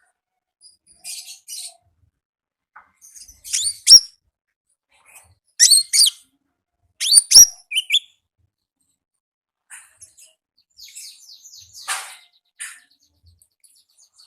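Brown-throated sunbird (konin) calling: clusters of short, sharp, high chirps with quiet gaps between them. The loudest clusters come in the middle, followed by softer twittering.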